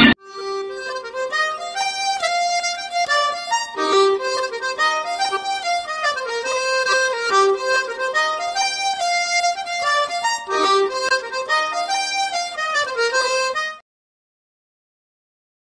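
Instrumental background music: a melody of clear, separate notes in repeating rising and falling phrases. It cuts off abruptly about two seconds before the end, leaving silence.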